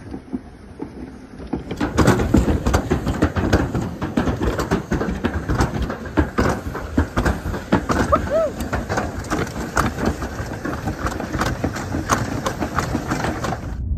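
Toboggan sled running down a curved metal chute, with a dense, rapid clatter and rattle over a steady rumble that starts about two seconds in.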